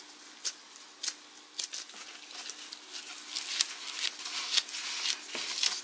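Gloved hands rounding a ball of sticky bread dough on a plastic cutting board: soft, irregular ticks and rustles of glove and dough, over a faint steady hum.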